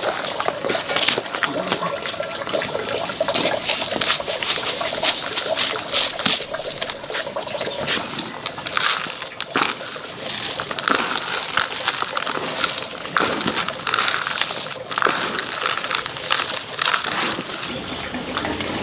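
Water splashing and sloshing, with many small irregular splashes.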